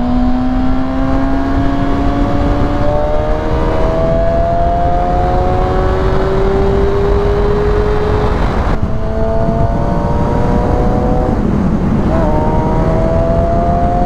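Kawasaki Ninja ZX-6R's inline-four engine pulling under acceleration at motorway speed, its pitch climbing slowly and dropping back twice, about 9 and 12 seconds in, before climbing again. Heavy wind rush on the microphone runs underneath.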